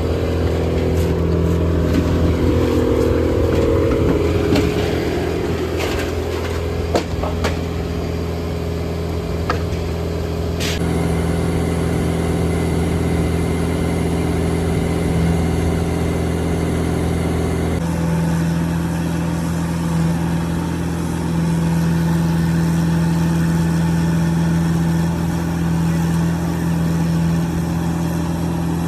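Engine of the machine moving a mobile home section into position, running steadily under load. There are several sharp clanks in the first ten seconds, and the engine note shifts at about eighteen seconds.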